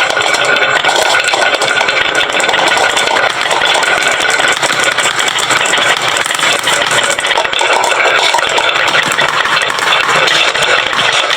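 Many marbles rolling and clattering down wooden slope tracks, a dense, continuous rattle.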